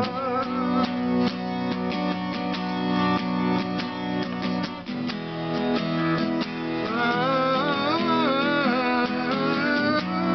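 Acoustic guitar strummed steadily, with a man's wordless vocal line wavering over it, strongest in the second half.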